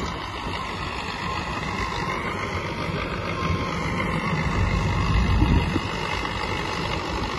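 HMT 5911 tractor, fitted with a 75 hp engine, running steadily under load as it pulls a working field machine; the low engine rumble swells briefly about four to five seconds in.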